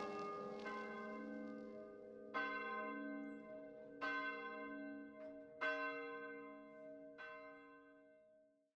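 A bell struck about every second and a half, each stroke ringing on and overlapping the next. The ringing fades away to silence near the end.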